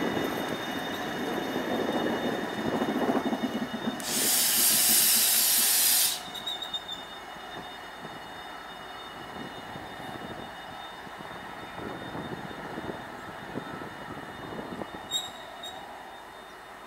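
A Direct Rail Services Stadler-built locomotive running light and moving away, its wheels rumbling on the rails. About four seconds in, a loud hiss of air lasts about two seconds and cuts off sharply. Then the running sound fades as the locomotive recedes.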